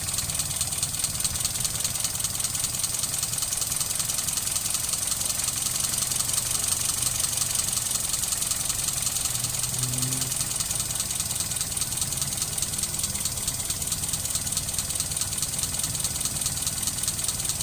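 Mitsubishi 4G33 four-cylinder engine idling steadily while its ignition timing is being set. The rough idle is put down to a vacuum leak, and the timing is too far advanced.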